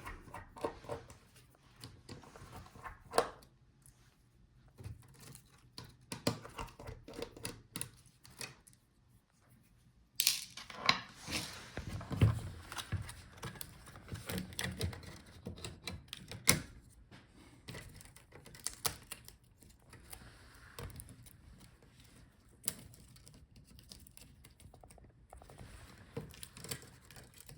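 Dell Latitude 7410 touchpad being unscrewed and lifted out of the palmrest: scattered small clicks, taps and knocks of tools and plastic parts, with a few sharper knocks around the middle.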